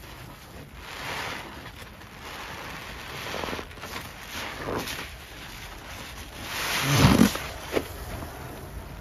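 Rubber-gloved hands squishing and sloshing wet, foamy Ajax cleanser paste in a glass bowl: a run of soft wet swishes, with a louder, fuller squelch about seven seconds in.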